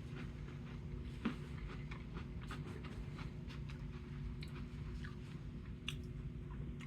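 Someone chewing a mouthful of freeze-dried Skittles: soft, irregular crunches and crackles, with one sharper crack about a second in.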